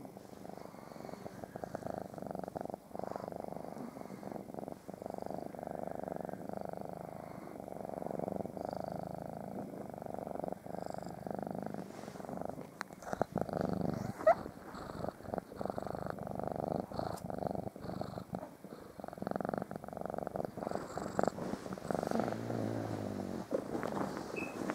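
Cat purring steadily and close up, in a continuous pulsing rumble. About halfway through comes one short, sharp rising squeak, the loudest sound, and near the end a brief low grunt.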